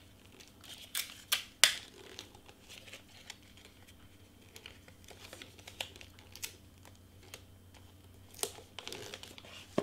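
Wrapping paper being folded and creased around the ends of a small gift box: light crinkling with scattered sharp taps, the loudest three close together about a second and a half in and a couple more near the end.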